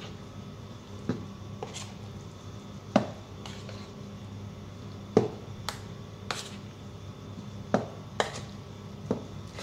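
A hand mixing and dividing moist ground spice paste on a plate, making about a dozen irregular sharp clicks and taps of fingers against the plate. A steady low hum runs underneath.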